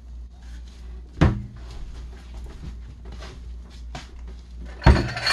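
Two sharp knocks of kitchen handling, one about a second in and a louder one near the end, with a faint tap between, over a steady low hum.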